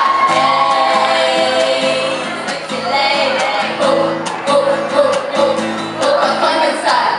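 A group of young women singing together into microphones over backing music.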